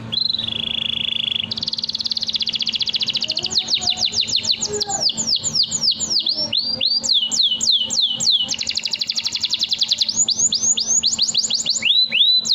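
Domestic canary singing a long, unbroken song. It opens with a fast buzzing trill, then moves through runs of rapidly repeated, high sweeping notes that change from phrase to phrase without a pause.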